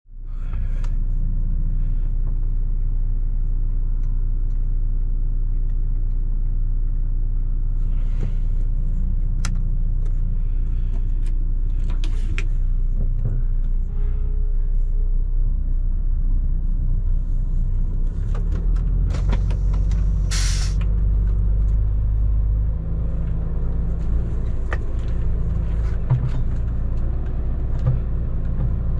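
MAN TGX 18.460 truck's diesel engine running, a steady low rumble heard from inside the cab, with scattered clicks and a short loud hiss about twenty seconds in.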